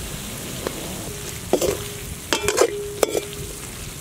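Diced potatoes frying in oil in a metal kadhai, sizzling steadily, while a perforated metal spoon stirs and scrapes them. The spoon knocks against the pan several times, each knock ringing briefly with a metallic tone.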